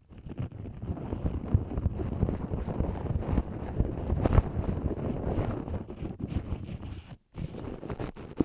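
Ear pick scraping and rubbing close to the recorder's microphone, a dense crackling rustle heavy in the low end, with a brief pause about seven seconds in.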